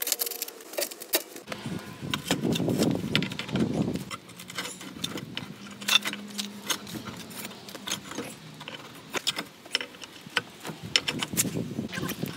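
Spade scraping through soil and a steel pry bar clinking and scraping against a concrete step slab: a string of sharp metallic clicks and scrapes.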